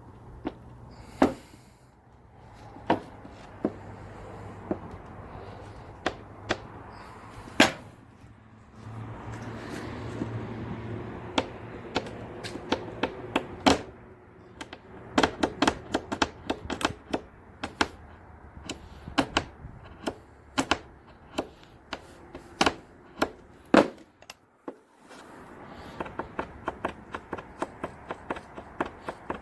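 Irregular sharp clicks and knocks, spaced from a fraction of a second to a second or more, thickest about halfway through, over a faint low hum.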